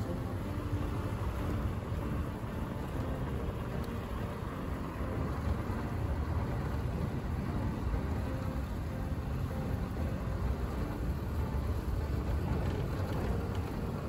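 A moving road vehicle: a steady low rumble of road and wind noise with a faint engine hum that comes and goes.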